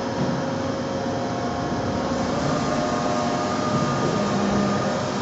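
Steady machinery hum from a large powered-up CNC floor boring and milling machine in a machine shop, its axes and spindle standing still. Faint steady whining tones join the hum about halfway through.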